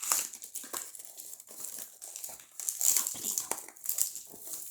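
Toy packaging crinkling and rustling in irregular crackles as hands work at opening it.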